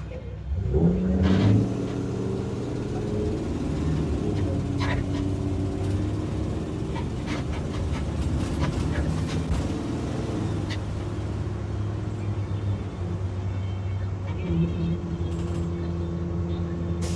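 Gasoline engine of an IC CE school bus running. It picks up sharply about half a second in, then varies in pitch with some sharp ticks before settling into a steady idle near the end. The bus has an exhaust leak from a faulty catalytic converter.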